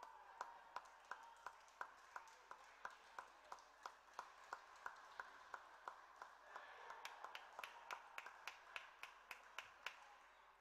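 Table tennis ball clicking back and forth between bats and table in a long rally, about three sharp ticks a second, with the hits coming a little closer together in the second half.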